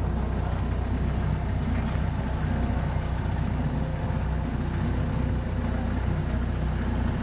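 Bobcat 773 skid-steer loader's diesel engine running steadily as the loader carries a tower section across the yard.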